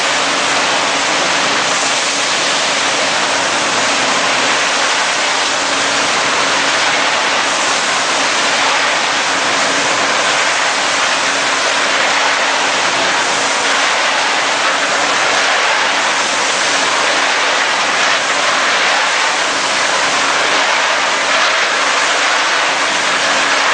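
A stream of nuts pouring from a tilted stainless steel drum into a steel bucket-elevator hopper: a steady, even rushing hiss of kernels landing on kernels and steel. A steady machine hum runs underneath.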